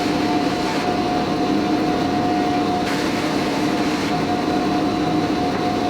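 Wide-belt panel sander running steadily with a 40-grit belt, surfacing epoxy and walnut panels, with a constant hum and a couple of steady tones.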